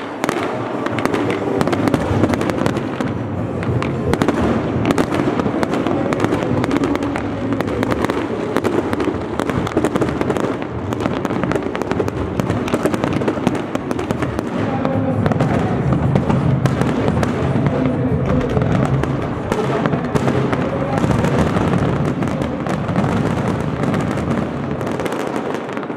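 Aerial fireworks display: a continuous barrage of shells bursting and crackling close together, with no let-up.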